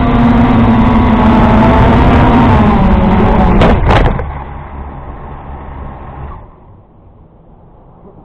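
A quadcopter drone's propellers and motors buzzing loudly and steadily, heard through its own on-board camera, as it descends to land. It touches down on sand with a knock about 4 s in; the buzz drops away, and the motors stop about two seconds later.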